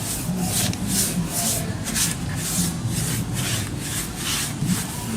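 Bristle brush scrubbing a linseed oil and paint thinner mix onto an oxidised HDPE plastic tub, in a steady back-and-forth rhythm of about two strokes a second.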